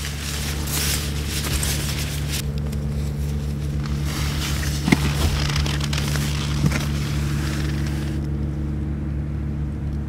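Strong wind rushing and buffeting, loudest in the first couple of seconds and easing after about eight, with the tent's nylon fabric rustling. A steady low mechanical hum runs underneath.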